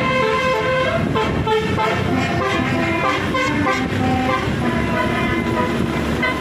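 Basuri telolet horns on a bus playing a melody: a run of short, pitched horn notes stepping up and down, over a low rumble.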